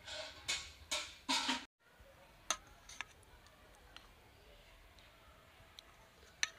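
Four short bursts of noise in the first two seconds, then a steel serving spoon clinking against a steel bowl and plate as fish curry is ladled onto rice: a handful of sharp metallic clicks, spaced about a second apart.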